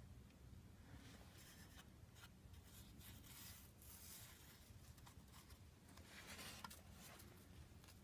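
Faint rubbing and scratching as fingers brush over the oily metal underside of a car's engine, several short scrapes, with a low steady hum beneath.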